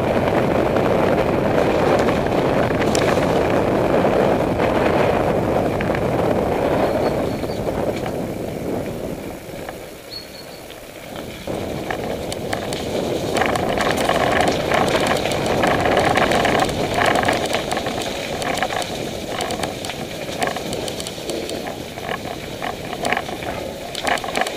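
A mountain bike being ridden: steady rushing noise from the tyres and the air moving past. From about halfway, as it goes over a rough muddy track, many quick rattles and clicks join in.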